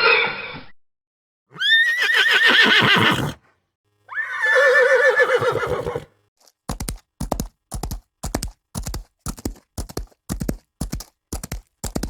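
Horse whinnying: the tail of one call, then two more separate whinnies, the second lower in pitch. After them come horse hooves clip-clopping in a steady beat of about three strikes a second.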